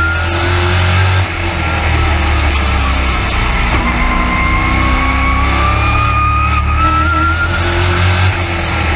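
Race truck engine heard from inside the cab at racing speed on a short oval. It climbs in pitch under throttle, drops sharply as the driver lifts about a second in, then builds steadily again before easing off near the end.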